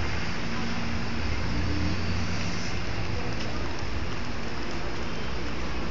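Steady outdoor street ambience: a low traffic hum under an even hiss, with no single event standing out.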